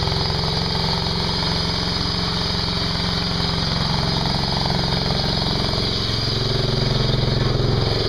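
Engine of a Ditch Witch SK300 mini skid steer running steadily as the machine drives along, getting a little louder near the end.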